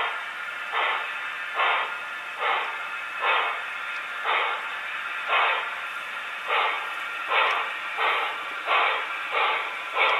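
Sound decoders of HO-scale Norfolk & Western 2-8-8-2 model steam locomotives playing slow steam exhaust chuffs, about one every second or a little faster, over a steady hiss, thin-sounding through the models' small speakers.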